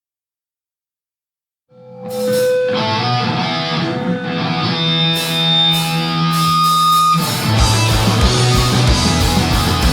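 Silence, then about two seconds in a distorted electric guitar comes in with held chords and a ringing sustained note. About seven seconds in drums and bass join and the full rock band plays on in a loud live recording.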